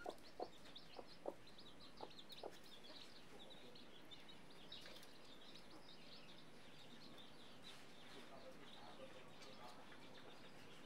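A hen clucking softly, a few short clucks over the first two seconds or so, with her chicks peeping faintly and high throughout.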